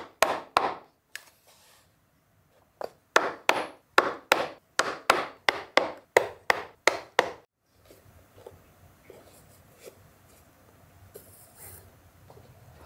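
A mallet striking a pricking iron to punch stitching holes through a leather bias binding and the canvas of a bag: a few sharp knocks, a pause of over a second, then a steady run of strikes at two to three a second that stops about seven and a half seconds in. After that only faint rustling and handling of the bag as the binding is stitched by hand.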